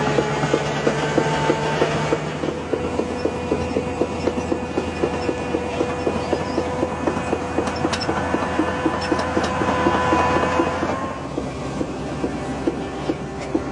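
Underground pipe-laying machine running: a steady engine hum with a fast, regular clatter of about five clacks a second.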